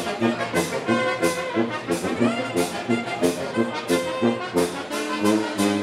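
Brass band playing, trombones and trumpets over a steady percussive beat of about three strokes every two seconds.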